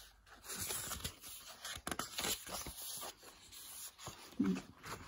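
Pages of a paperbound book being turned and handled: soft paper rustling and scraping with light taps. A brief low hum about four and a half seconds in.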